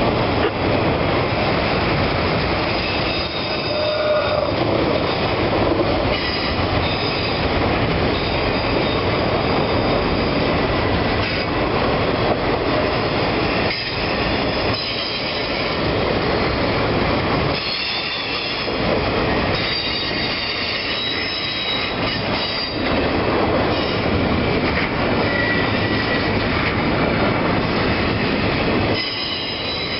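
Norfolk Southern automotive/intermodal freight train rolling past: a steady loud rumble and clatter of wheels on rail, with thin high-pitched wheel squeal coming and going over it.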